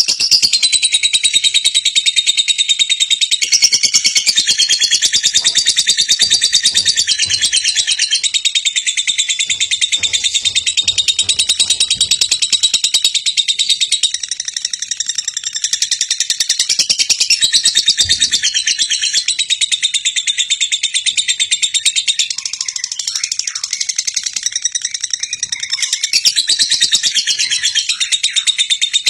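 Birds chirping in a dense, continuous stream of rapid high calls.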